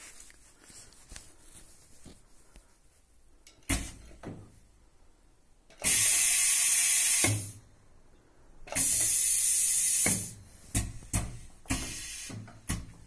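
Yilmaz TK 501 single-head PVC welding machine's pneumatics working through a weld cycle: a couple of clunks, then two loud bursts of compressed air hissing out, each about a second and a half long, followed by sharp clicks and a shorter hiss near the end.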